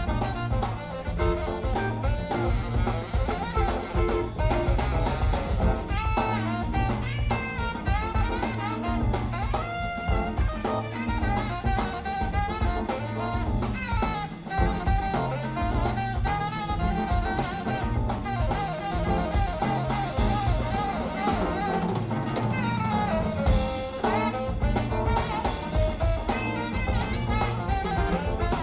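Background jazz music with drum kit, saxophone and brass, playing steadily.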